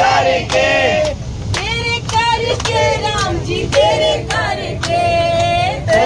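A devotional song: voices singing over a steady beat of about two strokes a second, with a low steady rumble underneath.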